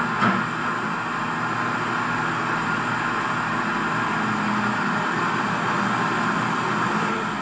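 Radio-controlled Cat 336D model excavator's motors running with a steady mechanical whir, with one short knock just after the start.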